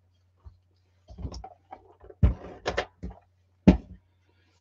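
Scrapbooking supplies being handled on a desktop: light clicks and rustles, then several sharper knocks, the loudest a single knock near the end.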